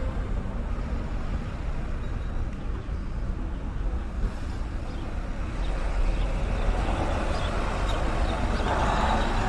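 Steady low rumble of vehicle traffic, with the noise growing somewhat louder in the last few seconds.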